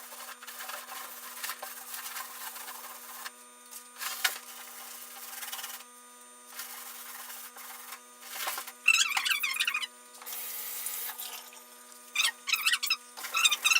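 A damp cloth rubbing over the surface of a box in wiping strokes, scratchy and uneven, with bursts of squeaking about nine seconds in and again near the end.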